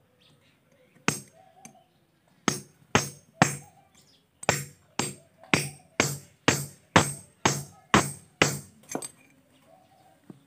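Hammer blows on an iron axe head resting on a metal block: sharp, ringing metal-on-metal strikes. A few single blows come first, then a steady run of about two a second that stops about nine seconds in.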